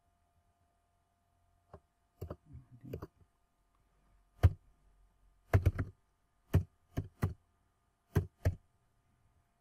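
Computer keyboard and mouse clicks while a phone number is entered into a form: about a dozen separate knocks at an uneven pace, some in quick pairs, the loudest around the middle. A faint steady hum lies underneath.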